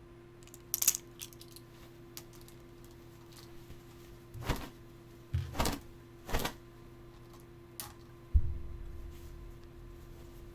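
Scattered light clicks and clatter with three heavier knocks in the middle, then a dull thud near the end followed by a low rumble, over a steady low hum: household objects being handled.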